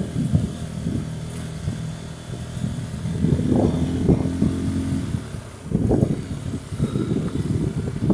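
Motorcycle engine running while riding along a road, with wind buffeting the microphone in irregular gusts.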